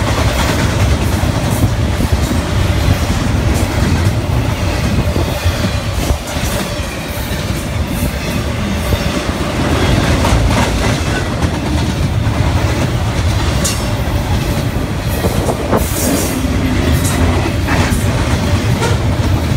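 Double-stack intermodal freight train passing close at speed: a steady loud rumble and rattle of steel wheels on the rails, with a few sharp clanks in the second half.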